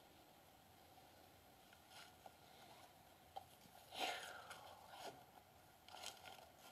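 Near silence, broken by a few faint short rustles, the clearest about four seconds in and again around six seconds: footsteps through grass and scattered wood chips.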